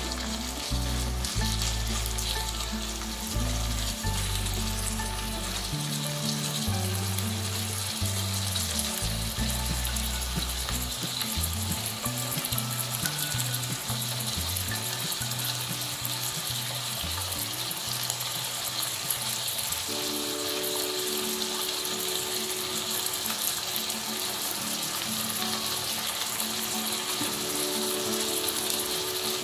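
Chopped pig's ear and onion sizzling steadily in hot oil in a nonstick frying pan.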